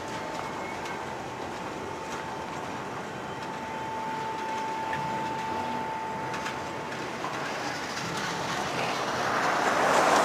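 Freight train rolling slowly on the rails with a steady rumble and a thin, steady high squeal for about the first seven seconds; the rolling noise grows louder near the end.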